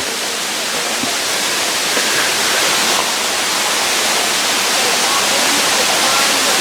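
A waterfall cascading over rock, a loud, steady rush of falling water.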